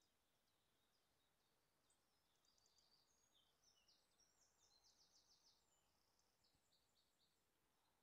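Near silence with faint small-bird song: high chirps and quick trills, busiest through the middle.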